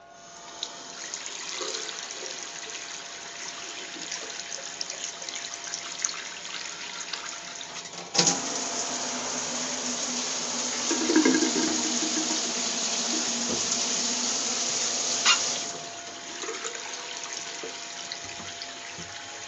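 Water running from a sink faucet, then a click about eight seconds in as the flow is switched over to the hand shower head, which sprays more loudly. About seven seconds later another click, and the water runs from the sink spout again, quieter.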